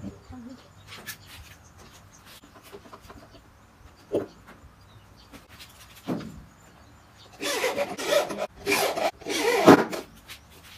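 Cordless screwdriver driving screws into a subwoofer cabinet, in three short runs in the second half. Before that, faint rubbing and two short knocks as the parts are handled.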